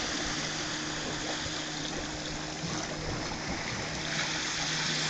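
Steady wash of sea water, surf or waves, as a continuous hiss, with a faint steady low hum underneath.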